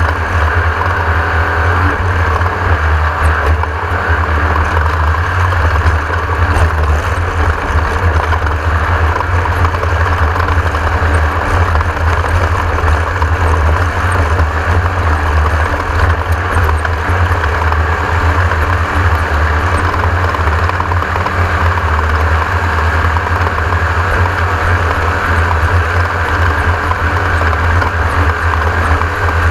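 Class 1600 off-road race buggy running at speed: the air-cooled VW 1600 engine keeps up a loud, steady drone under a constant rush of noise, with no let-up.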